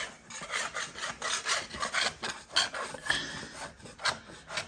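Hand-held scraper stripping old wallpaper off a wall: short, dry scraping strokes repeated about three times a second.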